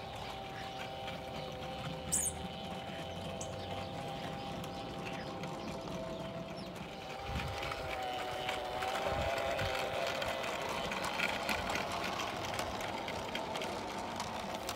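Garden-railway model train running on outdoor track, its wheels clicking over the rail joints, louder and faster as the wagons pass close by in the second half, over a steady whine.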